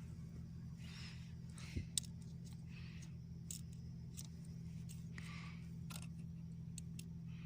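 Faint small clicks and rustles of hands working around the clutch pedal bracket under the dashboard, over a steady low hum.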